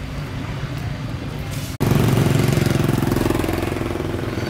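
A small engine running with a fast, even chugging. About two seconds in the sound cuts out for an instant and comes back louder.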